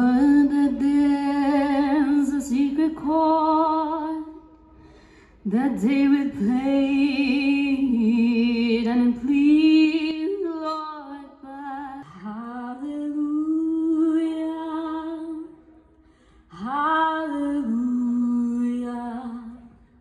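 A woman singing unaccompanied into a microphone, in four long phrases of held notes with vibrato, each phrase separated by a short breath pause.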